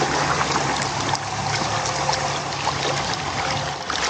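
Water splashing and sloshing along the hull where a sailfish is held alongside, over the low hum of the boat's idling twin 175 hp outboards. The hum fades near the end.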